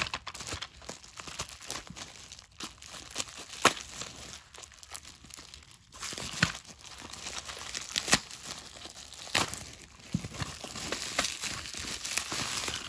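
Plastic packaging being handled and unwrapped, crinkling and crackling irregularly, with a few sharper, louder crackles.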